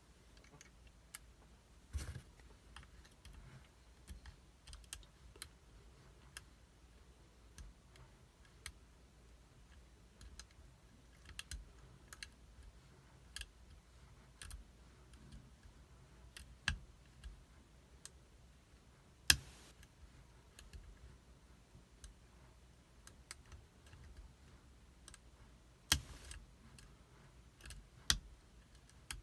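Lock pick and tension wrench working the pins of a pin tumbler challenge lock: faint, irregular metallic clicks and taps as pins are probed and set, with a few sharper clicks now and then.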